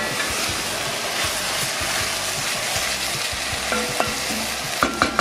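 Sliced red onions sizzling in olive oil on high heat while a wooden spoon stirs them in an enamelled cast-iron pot, with a couple of knocks near the end.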